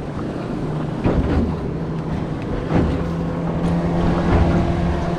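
Outboard motor of a passing powerboat droning steadily, growing a little louder toward the end, over wind buffeting the microphone and moving water.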